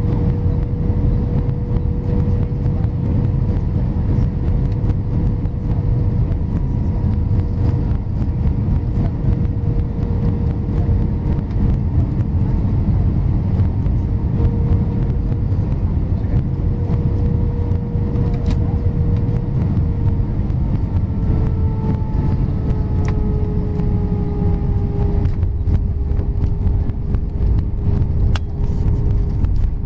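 Airbus A319 cabin noise on final approach and landing: a steady rumble of engines and airflow with a steady engine whine. About two-thirds through, the whine drops in pitch as thrust comes back. Near the end, the wheels touch down and the cabin rattles and clatters as the plane rolls on the runway with its spoilers up.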